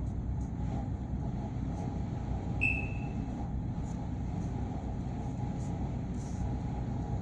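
Steady low background hum, with a short faint high tone about two and a half seconds in.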